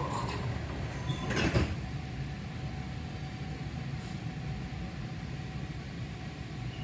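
Interior of an Alstom Citadis Spirit light-rail car standing at a station: a steady low hum with a faint constant whine, and a brief loud rush of noise about a second and a half in.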